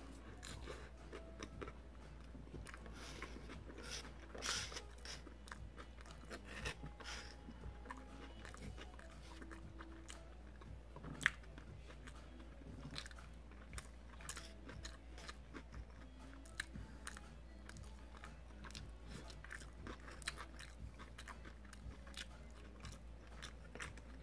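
Close-miked chewing of mouthfuls of Tex-Mex burrito: soft, wet mouth clicks and smacks all through, with one sharper click about eleven seconds in. A faint steady low hum sits underneath.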